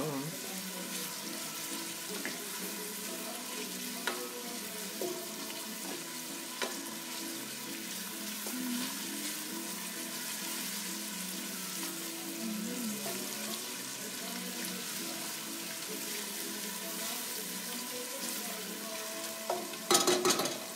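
Sliced onion sizzling steadily as it fries in a stainless steel stockpot, stirred with a wooden spoon that gives a few light ticks against the pot. A few sharp, louder knocks near the end.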